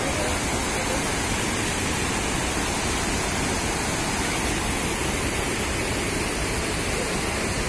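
Water pouring over a dam's overflowing spillway and rushing down a rocky channel, a steady, unbroken rush of white water.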